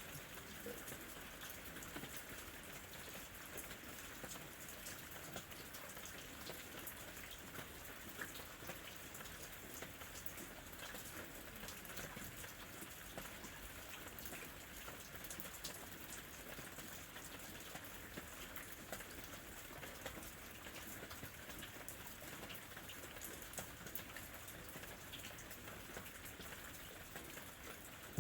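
Steady rain falling, with the patter of many individual drops striking a surface.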